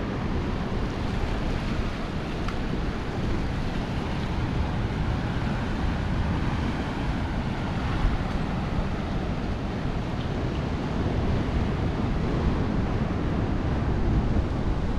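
Rough ocean surf washing and breaking, with wind blowing on the microphone: a steady rushing noise.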